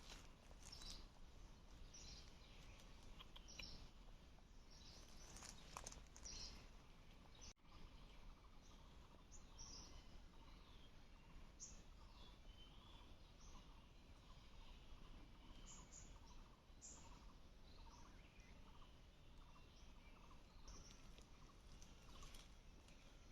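Faint wild bird calls: scattered short, high chirps, and from about a third of the way in a lower call repeated roughly once a second.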